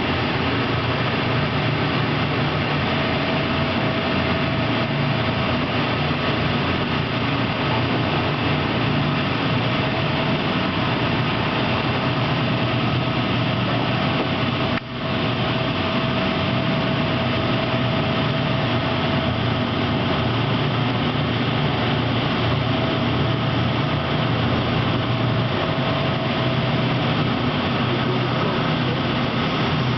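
Loud, steady drone of heavy machinery with a rushing noise over it. It dips for a moment about halfway through.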